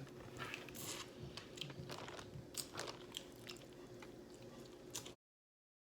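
Faint eating sounds from a crab meal: chewing with small crunches and clicks. The audio cuts off abruptly about five seconds in.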